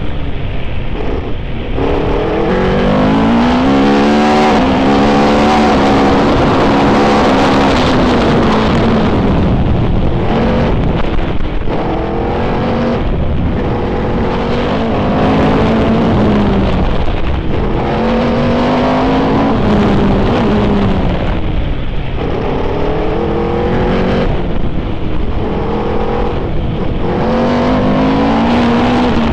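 Formula 3000 single-seater's 3-litre V8 at racing speed, heard from an onboard camera: the engine pitch climbs again and again and drops back at each gear change and each lift for a bend, over a rush of wind and road noise.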